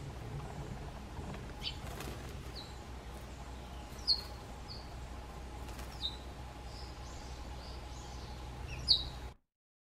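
Eurasian tree sparrows chirping in short, sharp, high notes, several times, the loudest about four seconds in and just before the end. A sparrow's wings flutter as it dust-bathes in gravel, over a steady low hum. The sound cuts off suddenly near the end.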